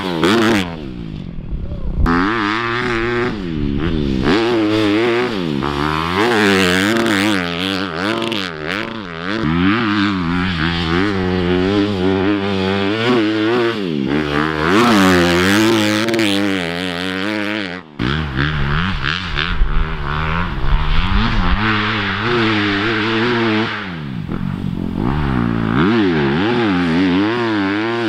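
Honda CRF250R single-cylinder four-stroke dirt bike, fitted with a Yoshimura RS-9T full exhaust system, being ridden hard. The engine note climbs and falls again and again as the rider works the throttle and gears.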